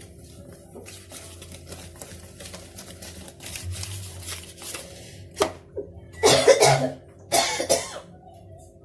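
A woman coughing hard several times, the loudest coughs about six and seven seconds in. Before them there are light clicks and scrapes of batter being mixed in a bowl over a faint steady hum.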